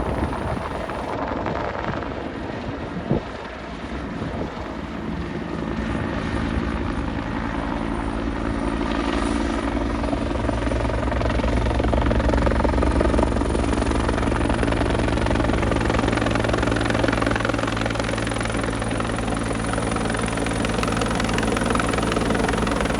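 Bell UH-1 Huey helicopter running, its rotor chop and turbine steady, growing louder over roughly the first ten seconds and then holding. A brief sharp click about three seconds in.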